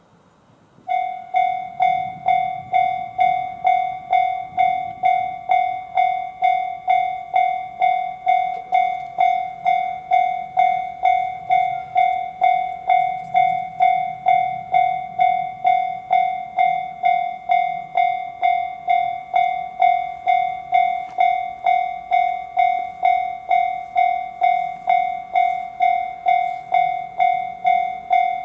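Japanese railway level-crossing alarm in the JR standard sound: an electronic bell-like ding repeating evenly a little under twice a second. It starts suddenly about a second in.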